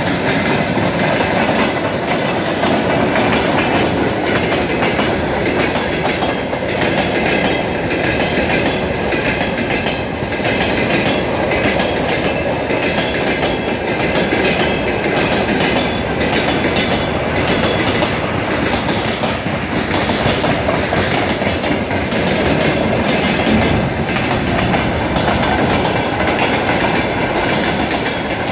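Freight train wagons rolling past: a loud, steady rumble of steel wheels on rail with a rhythmic clickety-clack over the rail joints, and a thin high metallic whine above it.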